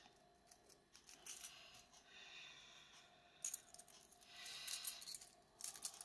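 Small metallic clicks and clinks of steel sewing needles being handled and pushed into a lipstick-shaped magnetic needle case, with a few stretches of light scraping as the metal parts rub.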